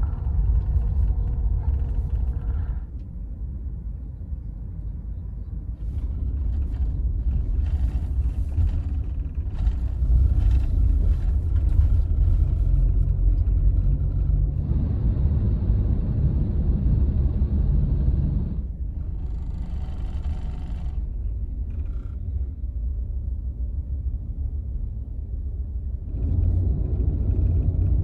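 Low, steady cabin rumble of a Scania Astromega double-decker bus on the move, heard from the front of the upper deck. Its level and hiss change in steps every few seconds.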